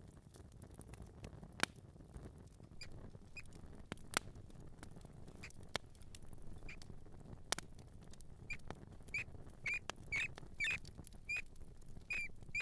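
Mouse squeaking: a dozen or so short, high chirps that come faster in the second half, over a soft scurrying patter. Three sharp clicks are heard in the first half.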